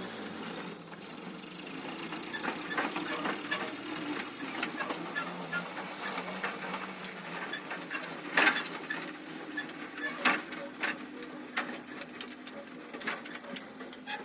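Walk-behind tractor's small engine running steadily, with irregular clicks and knocks over it, the loudest about eight and ten seconds in.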